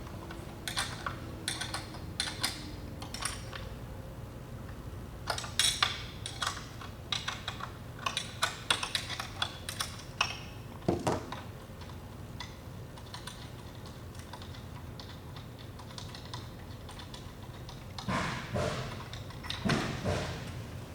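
Irregular metal clicks and clacks of hand tools working the two bolts that hold a machine's tunnel guard, with a steady low hum underneath.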